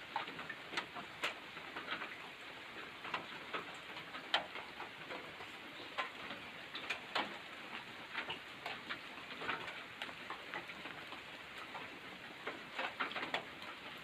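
Rain dripping after a shower: irregular sharp drops ticking onto surfaces over a soft, steady hiss.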